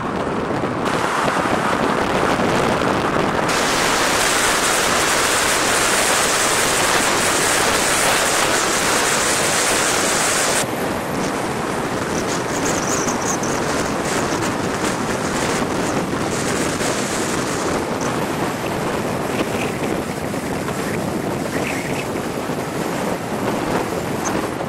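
Wind rushing over a microphone mounted on the outside of a moving car, mixed with tyre and road noise at highway speed. The rush shifts in tone about three seconds in and again about eleven seconds in.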